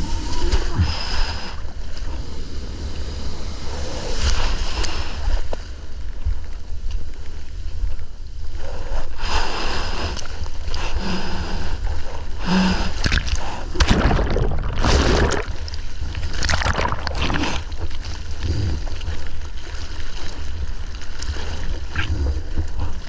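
Ocean surf and rushing whitewater splashing around a GoPro as a surfer paddles out through breaking waves, over a constant heavy low rumble of water and wind on the microphone. There are several louder surges of splashing, the biggest near the middle.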